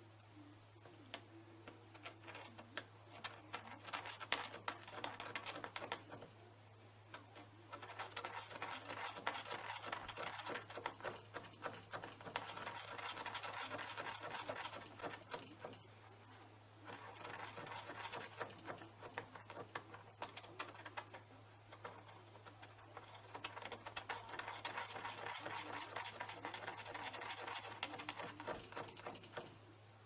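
Dense crackling from a firebrick microwave smelting furnace, coming in bursts of a few seconds with short pauses between, over a steady low hum.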